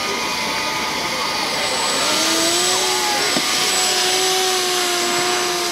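Fan of a radio-controlled model hovercraft running with a steady rushing whine; about two seconds in it gets louder and settles onto a steady pitched hum.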